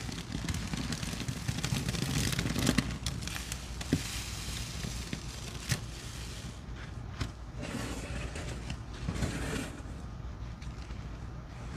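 Soapy sponge being squeezed and worked in a thick, foamy paste of soaked soap, cleaner and baking soda: wet squishing with many small crackling pops. It swells about two to three seconds in and again about eight seconds in, with a few sharper clicks.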